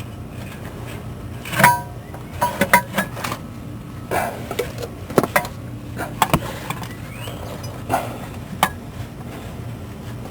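Scattered metallic clinks and knocks of hand tools on metal as a bolt on the catalytic converter is worked loose, over a low steady hum. The loudest clank, about one and a half seconds in, rings briefly.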